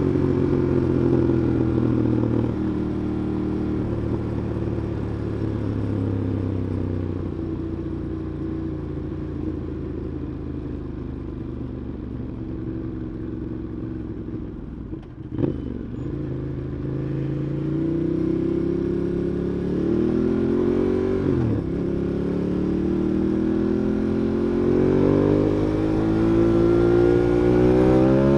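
Ducati Monster 821's 821 cc Testastretta L-twin engine running on a ride: it eases off and slows for several seconds, a brief knock comes about halfway, then it pulls away again, its pitch rising in steps through the gears near the end.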